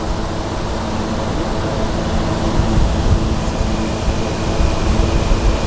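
A steady rushing noise with a strong low rumble, growing slightly louder.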